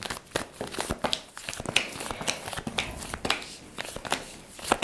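Tarot cards being shuffled and handled: a quick, irregular run of light clicks and rustles.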